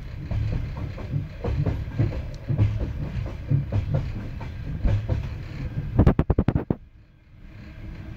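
Train running along the track, heard from inside the carriage: a steady low rumble with irregular wheel knocks. About six seconds in comes a quick run of loud clacks, followed by a brief quieter moment.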